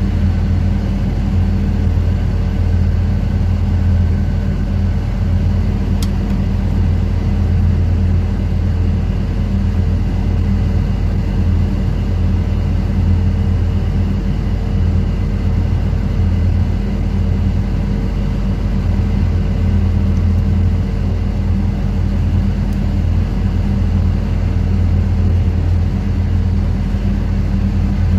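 Onboard machinery on a fishing vessel, running as a steady, loud, low drone with a constant hum that does not change.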